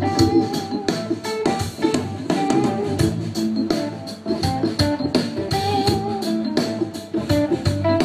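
A live rock band playing: a guitar line with held and bent notes over bass and drums keeping a steady beat.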